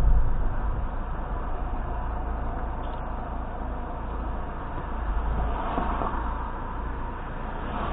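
Steady low rumble of road and engine noise inside a slowly moving car, picked up by a dashcam's microphone. An oncoming car passes with a brief swish about six seconds in.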